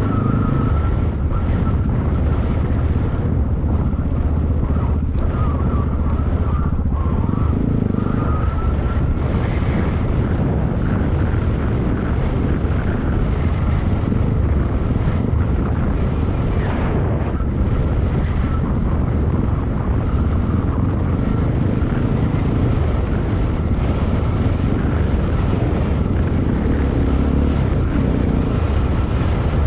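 Yamaha XT225's air-cooled single-cylinder four-stroke engine running steadily under way on an off-road ride, its note shifting now and then with the throttle, with wind noise on the microphone.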